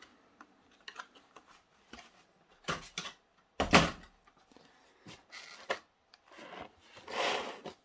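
Clear plastic packaging being handled: a few short crinkles and rustles from a plastic blister insert, with one louder knock about three and a half seconds in and a longer rustle near the end.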